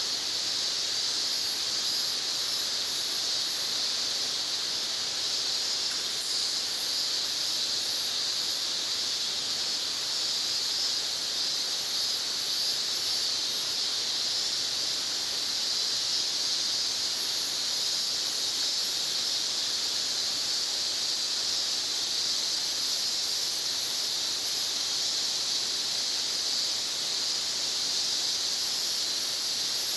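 Steady chorus of insects: a high, shrill drone with a still higher buzz over it that pulses on and off.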